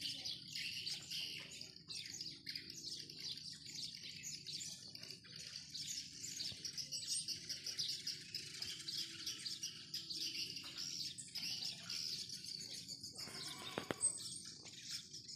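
Swiftlets chirping: a dense, continuous twittering of many high calls, with a faint low hum underneath and one brief click near the end.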